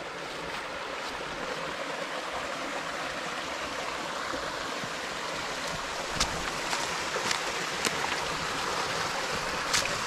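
Small waterfall pouring into a shallow forest pool: a steady rush of water. From about six seconds in, a few short splashes as a dog wades into the pool.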